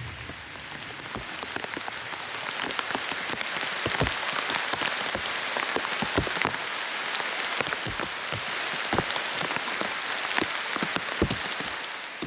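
Heavy rain pattering on a tarp overhead: a steady hiss of rain with many separate heavy drops striking close by. The rain builds over the first few seconds.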